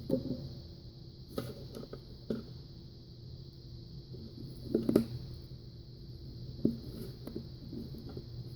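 Scattered light clicks and taps from small tools and parts being handled during soldering, the loudest cluster about five seconds in, over a steady low hum and a steady hiss.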